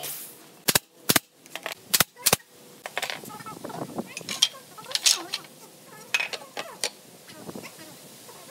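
Pine boards knocking sharply against a wooden frame as they are set in place, four loud knocks in the first two and a half seconds, then lighter knocks and handling of the wood.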